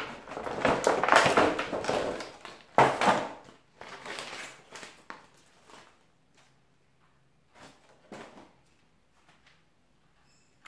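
Rigid clear plastic blister packaging crackling and crinkling as it is pulled open and handled, with a sharp crack at about three seconds. The crackling thins out after about four seconds, leaving only a few light clicks and knocks.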